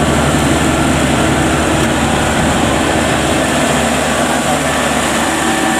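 World WD102Plus tracked rice combine harvester running steadily as it cuts rice, its engine, belts and threshing gear making a loud, even machine noise with no change in pitch.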